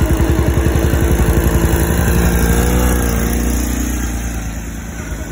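Riding lawnmower engine running while driving through snow, a steady pulsing beat that eases off a little past the middle.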